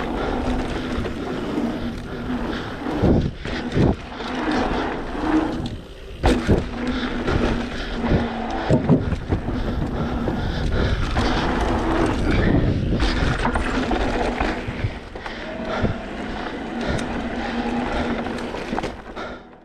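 YT Decoy electric mountain bike ridden fast down a dirt jump line: tyres rolling on dirt and rushing wind on the microphone, with a steady hum underneath. Frame and chain rattle, and several sharp thumps of landings come in the first half.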